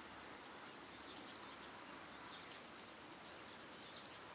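Near silence: a faint, steady outdoor hiss with a few faint, short high chirps now and then.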